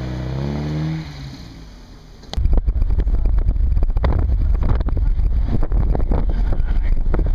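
A car engine's note drops in pitch and fades in the first second. About two and a half seconds in, the sound cuts to loud wind buffeting on the microphone over the low rumble of a car being driven.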